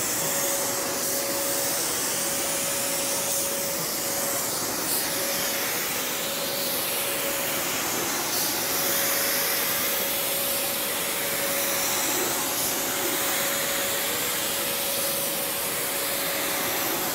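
Steady hiss of a gravity-feed paint spray gun laying down a coat of paint, over the constant running of the inflatable spray booth's electric blowers, with a steady hum through it.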